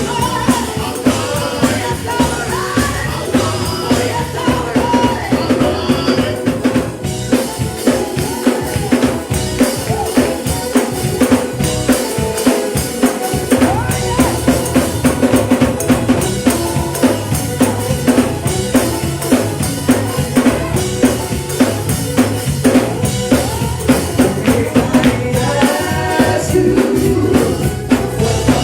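Live gospel band playing an up-tempo passage, with a drum kit's snare and bass drum keeping a fast, steady beat under sustained instrument chords.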